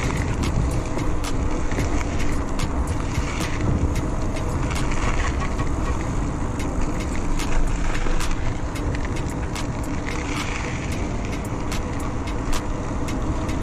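Steady road and wind rumble on a rider's microphone while riding along a road in traffic, with frequent short clicks and knocks.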